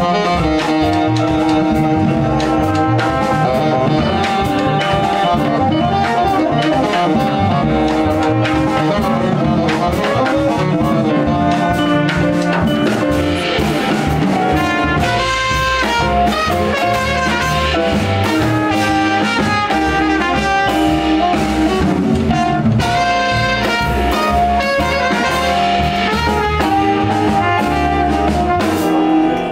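Live jazz quintet of tenor saxophone, trumpet, piano, double bass and drums playing an up-tempo tune. The trumpet joins the tenor saxophone partway through, and the two horns play together over the bass and drums.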